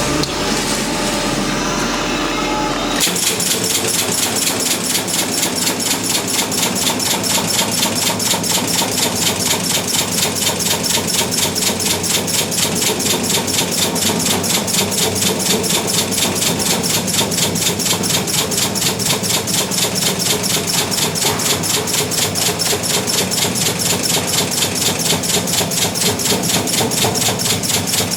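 Resistance spot-seam welding machine joining a stainless steel sink into a countertop. A steady hum for the first few seconds, then about three seconds in the serial welding starts as a rapid, even train of pulses that runs on steadily.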